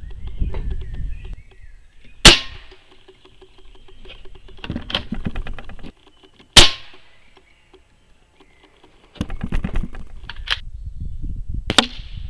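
Two sharp shots from a QB 78 CO2 pellet rifle, about four seconds apart, each with a brief ringing tail. Fainter clicks come between them, and a smaller crack follows near the end.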